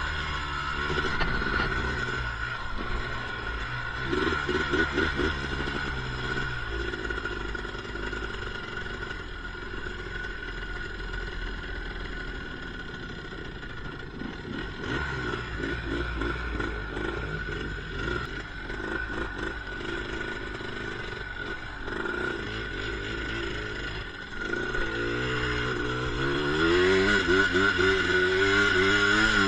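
ATV engine running at varying speed as the quad is ridden, with the revs climbing near the end.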